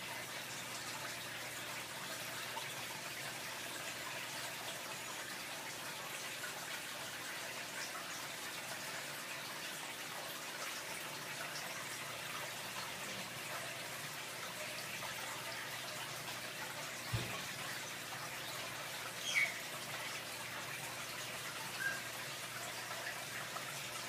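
Aquarium water running and splashing steadily, as from its filter or aeration, with a dull low thump about two-thirds through and two brief high chirps near the end, one of them falling in pitch.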